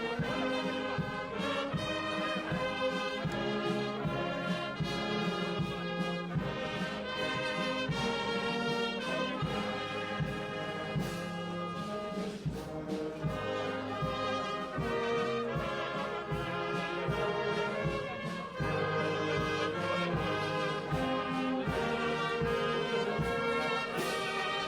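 A brass band plays continuously, with held and changing notes.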